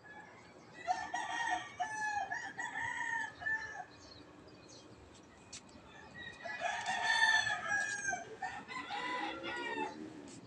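Rooster crowing twice: a long segmented crow about a second in, and another starting about six and a half seconds in.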